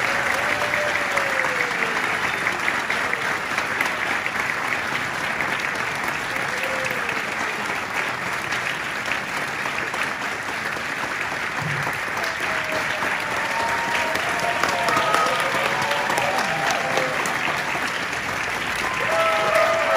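Audience applauding steadily and heavily, with whoops and cheers from several voices joining in the second half and growing near the end.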